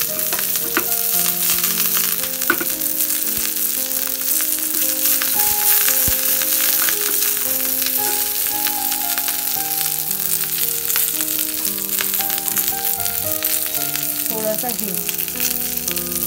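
A tempering of mustard seeds, cumin, urad dal, dried red chillies, garlic and fresh curry leaves sizzling steadily in hot oil in a small nonstick pan, with scattered crackles, while a steel spoon stirs it. Soft background music plays underneath.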